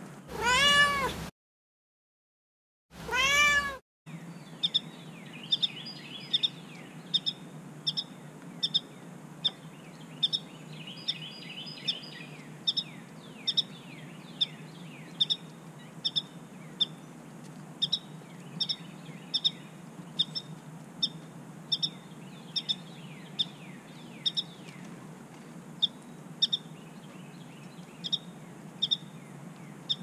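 A cat meows twice at the start: a loud meow that rises then falls in pitch, then a shorter one about two seconds later, with dead silence between. After that a bird's short, sharp chip notes repeat steadily about every two-thirds of a second, with fainter downward-sliding chirps under them for a few seconds.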